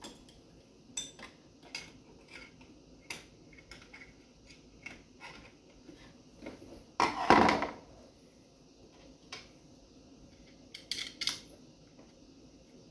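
Metal engine parts and hand tools clinking and knocking as a homemade twin-cylinder two-stroke engine is handled and fitted into a scooter frame: scattered light clicks, one longer, louder clatter about seven seconds in, and a quick run of clicks near the end.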